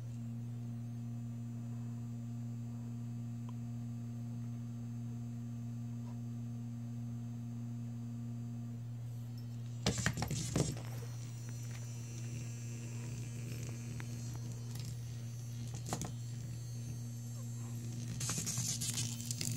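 A steady low electrical hum, broken about halfway through by a short burst of clatter as a cat swipes a small light-up toy off a mat and across a tile floor. More scuffling and rattling from the toy and the cat's paws comes near the end.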